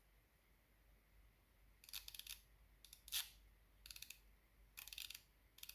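Bahco SB8150 half-inch ratchet with an 80-tooth gear, its pawl clicking in short bursts of fine, rapid clicks as the handle is swung back and forth, about five times from about two seconds in. The clicking is faint, the sign of a fine-toothed mechanism described as smooth and quiet.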